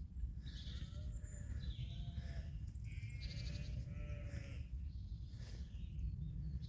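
Sheep, ewes with young lambs, bleating: five or so separate short bleats, fairly faint, over a steady low rumble.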